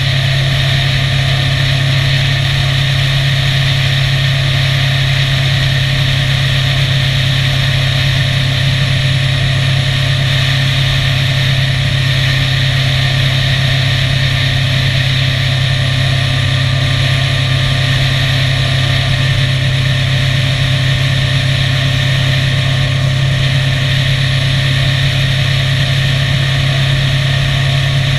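Motorcycle engine running at a steady cruising speed: one constant low hum with no change in pitch or loudness.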